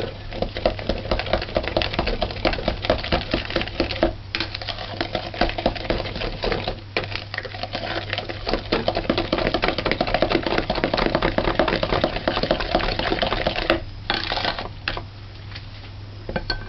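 A spoon beating cake batter by hand in a bowl: rapid, rhythmic clacking that pauses briefly a few times, over a steady low hum.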